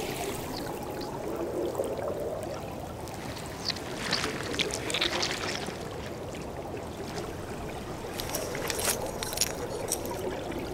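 Underwater ambience: a steady watery wash with scattered small clicks and crackles, which come more often in the second half.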